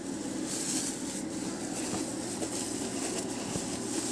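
Clear plastic bag wrapped around a sneaker crinkling as the shoe is pushed and worked by hand onto a padded press cushion, over a steady low hum.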